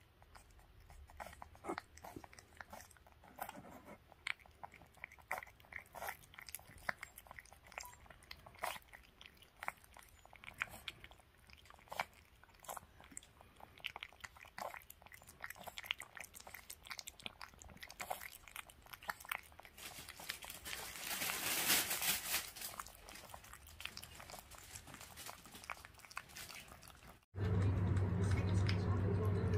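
A Dansung-gae puppy eating soft wet food from a stainless steel bowl: irregular wet licking, smacking and chewing with small clicks, busier for a few seconds a little past the middle. Near the end it cuts abruptly to a louder steady low hum, with the eating still going on.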